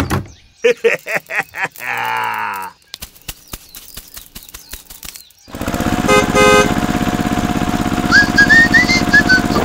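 A string of clicks and knocks with a short springy sound, then a run of sharp ticks; about five and a half seconds in, a tractor engine starts running steadily, pulsing, and a short whistled tune plays over it near the end.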